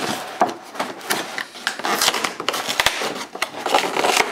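Cardboard and plastic toy packaging being handled and pried open, giving a dense, irregular crackling and rustling with many small clicks.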